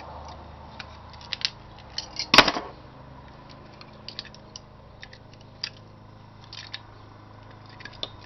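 Blue-handled cutters snipping and prying at a component on a computer power-supply circuit board: scattered small clicks and snaps, with one loud crack about two and a half seconds in as a part breaks or a lead is cut.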